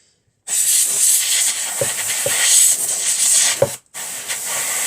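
Can of compressed air spraying in two long blasts, a hiss broken by a short gap near the end, blowing dust and lint out of a sewing machine. A few small knocks sound under the hiss.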